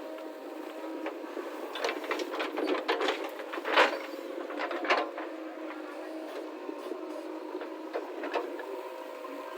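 Backhoe loader's diesel engine running steadily, with a run of knocks and clanks about two to five seconds in, the loudest near four seconds.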